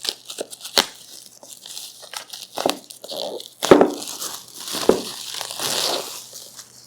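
Plastic wrapping on a jigsaw puzzle box being torn open and crinkled, with irregular crackles and a few sharper knocks, the loudest a little over halfway through.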